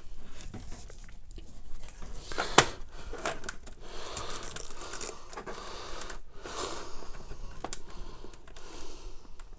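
Hands bundling a coiled network cable and tightening a strap around it: rustling handling noise with several sharp clicks, the loudest click about two and a half seconds in.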